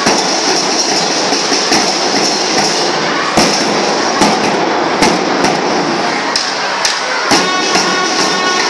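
School marching band (band melam) drumming: a dense, continuous snare-drum rattle with heavier accented drum strokes about every second. Near the end, wind instruments come in with held notes.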